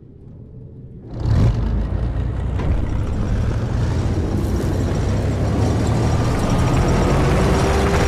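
Deep, steady mechanical rumble of heavy machinery, coming in sharply about a second in after a faint low start.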